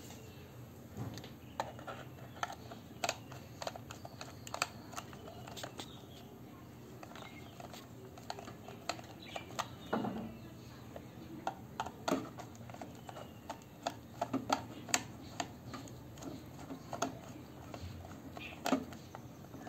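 Irregular light clicks and taps of a screwdriver tightening the wire terminal screws on a plastic solar charge controller, with the casing knocked about in the hand.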